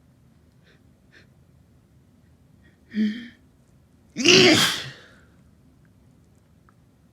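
A person's induced sneeze: a short voiced 'ah' intake about three seconds in, then one loud, explosive sneeze just over a second later that lasts under a second.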